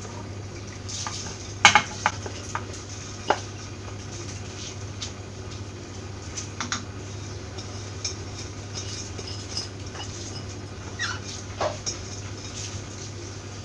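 Wooden spatula scraping rice out of a ceramic bowl and stirring it into coconut milk in an aluminium pressure cooker, with scattered clinks and knocks of bowl and spatula against the pot. A steady low hum runs underneath.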